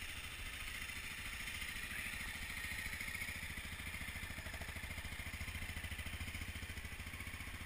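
Honda CRF250L's single-cylinder fuel-injected engine idling steadily with an even, fast pulse.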